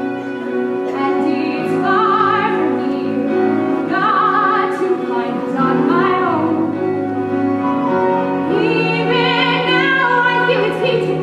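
A woman singing a musical-theatre solo with vibrato on held notes, accompanied by piano.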